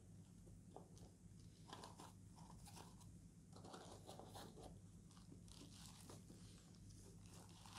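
Faint, scattered rustling and crinkling as hands handle a zippered hard-shell case sitting on bubble wrap and plastic wrapping, over a low steady hum.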